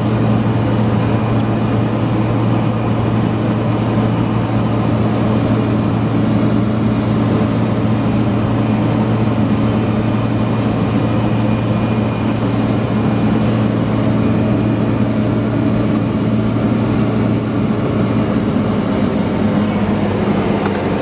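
Light propeller plane's engine running steadily as the plane moves along the ground, a loud, even drone with a thin, steady high whine above it, heard from inside the cabin.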